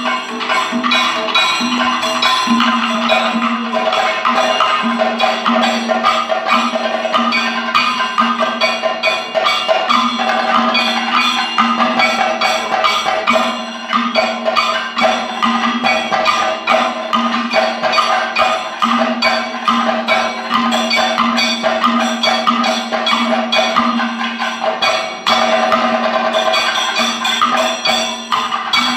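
Live Kathakali percussion: chenda and maddalam drums played in a dense, fast rhythm, with a steady ringing metallic tone running underneath, typical of the bell-metal gong and cymbals that keep time in Kathakali.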